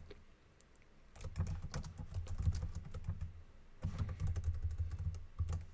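Typing on a computer keyboard: two runs of quick keystrokes with a short pause between them.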